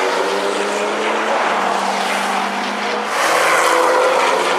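Several track cars' engines running at speed, with a Porsche 997 GT2 RS's twin-turbo flat-six accelerating past. The sound grows louder about three seconds in as the car comes close.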